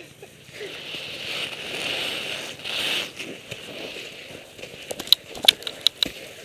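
Rustling handling noise over the first few seconds, then from about five seconds in a run of sharp, irregular crackles: footsteps crunching through snow.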